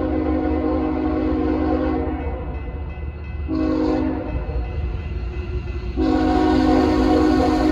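Diesel freight locomotive's multi-chime air horn blowing a long blast, then a short one about three and a half seconds in, then another long blast from about six seconds in: the long-short-long end of a grade-crossing signal. A steady low rumble of the train runs underneath.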